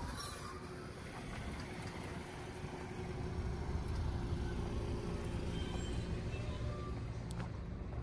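Steady low rumble of a distant engine, with a faint hum over it.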